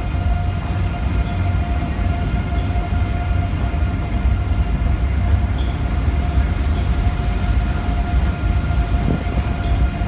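A train running across a steel railway bridge close by: a loud, steady low rumble with an even whine over it.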